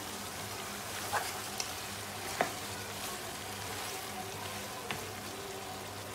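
Lamb, chopped tomatoes and spices sizzling in a frying pan as a wooden spatula stirs them, with a few sharp knocks of the spatula against the pan, the loudest about two and a half seconds in.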